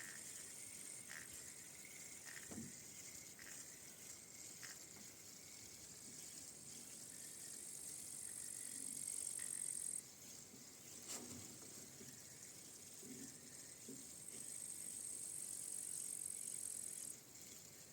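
Rowboat oarlocks squeaking once with each oar stroke, about once a second, fading after a few seconds, with a few soft oar knocks and splashes. A high insect trill from the riverbank comes in twice, several seconds at a time, and stops abruptly.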